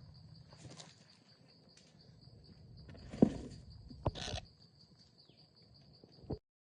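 An insect's steady high-pitched trill, with a few knocks and short rustles over it; the loudest is a thump about three seconds in. Everything cuts off just before the end.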